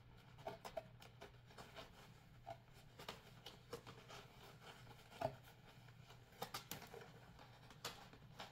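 Faint rustling and scattered small clicks of a cardboard box insert and a stiff plastic piece being handled and fitted together, over a low steady hum.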